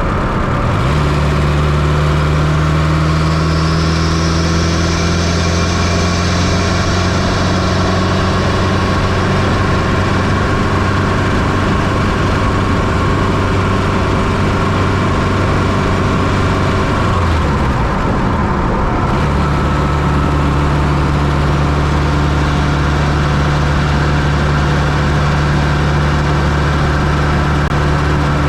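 Fiat Coupé 2.0 16V turbo's four-cylinder engine, heard from inside the engine bay, running at steady revs. Its note dips briefly about two-thirds of the way through, then settles back to the same pitch.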